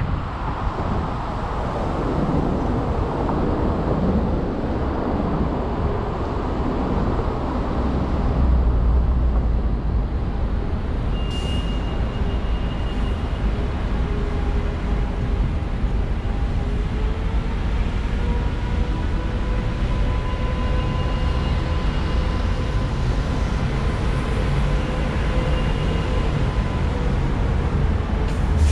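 Road and traffic noise picked up by a car-mounted camera: the car slows to a stop during the first few seconds, then sits idling while passing cars and a bus make a steady rumble. A brief high squeal comes about eleven seconds in.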